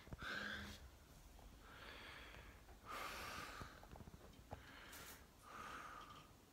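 A person breathing audibly through the nose close to the microphone: about five soft breaths, in and out, with a few faint clicks between them.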